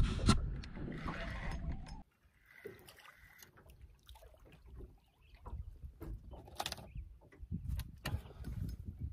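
Wind rumbling on the microphone over open lake water for about two seconds, then it cuts off sharply. After that come quiet clicks and rattles of a spinning reel being cranked as a small bass is reeled in and lifted into the boat.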